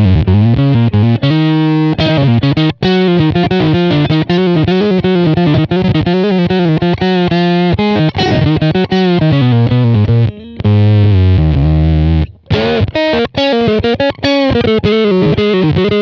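Electric guitar played through an EarthQuaker Devices Bit Commander analog octave synth pedal, filter open, bass tone blended with the sub-octave that tracks the notes closely. A fast single-note riff with a buzzy, distorted synth sound, with a longer low held note about two-thirds of the way through.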